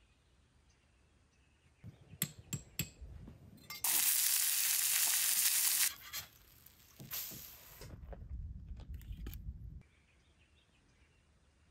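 Food sizzling in a hot pan, a loud hiss lasting about two seconds near the middle, after a few sharp clicks. A shorter sizzle follows, then a low rumble for about two seconds.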